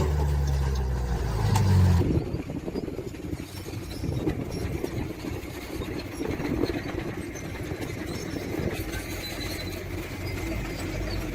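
Diesel engine of a heavy earthmoving machine running with a loud, steady low hum, which drops away about two seconds in to a quieter, uneven rumble. A sharp click comes right at the start.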